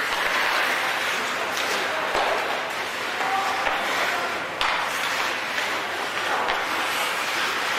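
Crowd noise in an ice hockey arena: spectators clapping and calling out during play, with a sharp knock a little past halfway.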